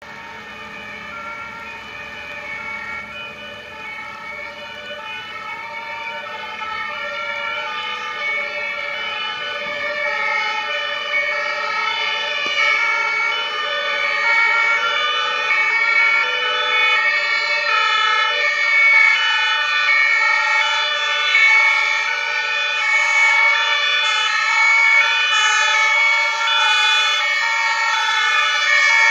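Two-tone sirens of an approaching convoy of German fire engines, several horns alternating between their two pitches out of step with one another and growing steadily louder as the vehicles near.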